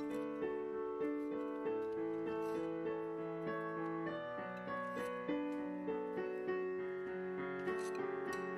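Background piano music, with notes played one after another at an even, unhurried pace.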